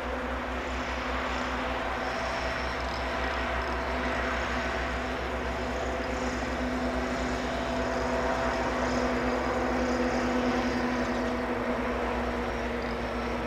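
Steady drone of a distant engine with a few held tones, swelling slightly near the end, with faint high-pitched chirping above it.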